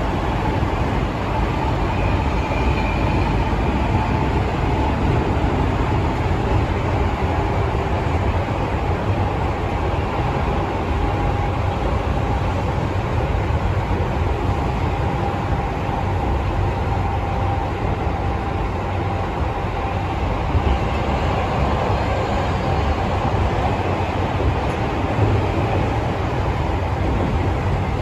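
Tokyo Metro 15000 series subway train running between stations, heard inside the passenger car: steady rolling and wheel-on-rail noise with a faint steady whine.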